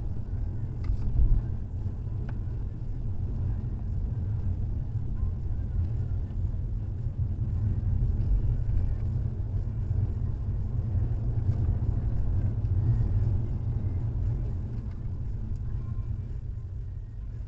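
Low, steady rumble of a car driving in traffic, engine and road noise recorded from inside the cabin by a dashcam; it eases off a little near the end.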